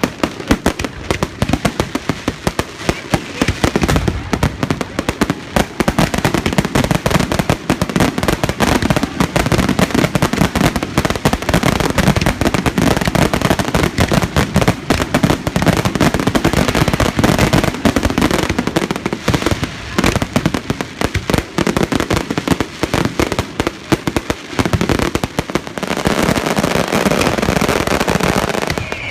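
Fireworks going off in a dense, continuous barrage of rapid bangs and crackles, thickening into a steady crackle near the end.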